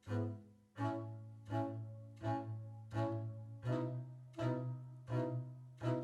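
Double bass played pizzicato in a slow, even pulse of plucked notes, about one every three-quarters of a second, each fading before the next. A little past halfway the line moves up to a higher note.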